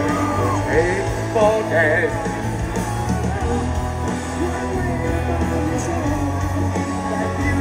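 Live rock band playing over a stadium sound system, with a male lead singer's long, wavering vocal lines over a steady bass line, heard from within the crowd.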